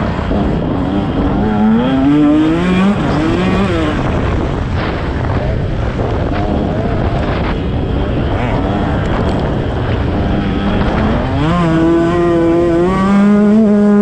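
Motocross bike engine revving hard on the track, its pitch climbing and dropping back with each gear change, then climbing once more near the end and holding high.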